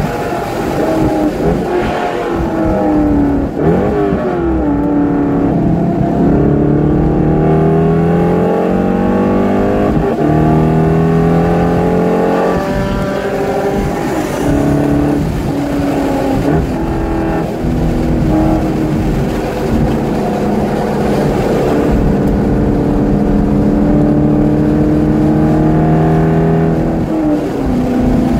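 Chevrolet Corvette C5's 5.7-litre V8 under hard track driving, heard from inside the cabin: the revs climb and fall back again several times as the car accelerates and lifts.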